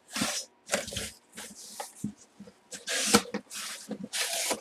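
Packaging being opened and handled: a cardboard box and plastic bag rustling and crackling in several short bursts as a full-size football helmet is unpacked.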